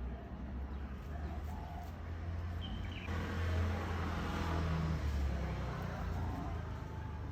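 A vehicle passing: a low rumble that swells about three to five seconds in and eases off, with a single short bird chirp just before the swell.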